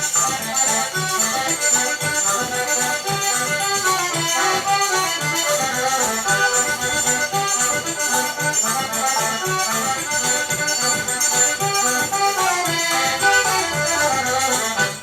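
Upbeat forró music: an accordion melody over a steady beat of shaker and hand percussion.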